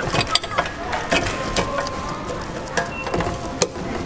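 Lollipops clattering and knocking against the plastic dispensing chute of a candy vending machine as a hand scoops them out: a rapid series of small clicks, thickest in the first second or so, and one sharper knock near the end.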